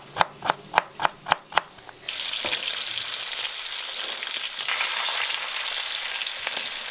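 A knife chopping red beets on a wooden cutting board, about seven quick even strikes. About two seconds in this gives way to a steady sizzle of pork frying in its own juices in a cast-iron pan as sliced beets are scraped in.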